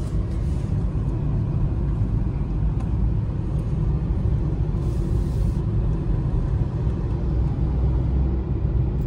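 Steady low rumble of a Suzuki car driving at road speed, engine and tyre noise as heard inside the cabin. A faint hiss rises briefly about five seconds in.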